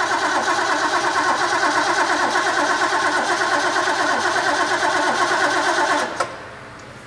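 Starter cranking a freshly rebuilt carbureted engine on its first start attempt. It turns over steadily without catching, then stops suddenly about six seconds in. It won't fire because fuel isn't reaching it yet.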